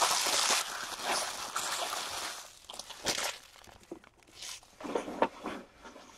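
Crinkling and tearing of a trading card pack's wrapper as it is ripped open, a dense crackle for the first two seconds or so, then scattered rustles and crackles as the wrapper and cards are handled.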